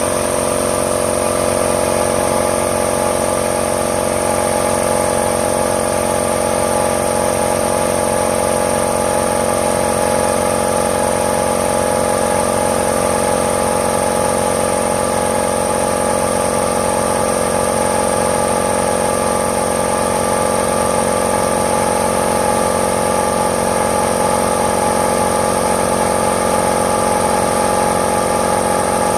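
Stanley 2.5 hp belt-drive air compressor running steadily, its twin-piston pump driven by an electric motor, filling its tank from empty toward its 10 bar (145 psi) cut-out.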